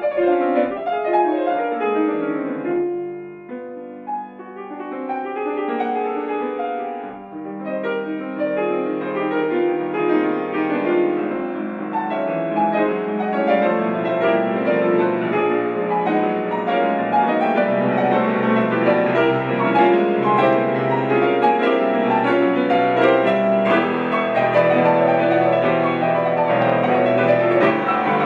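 Solo grand piano played in concert: fast, dense passagework that thins and quietens about three seconds in, then builds fuller and louder from about eight seconds on.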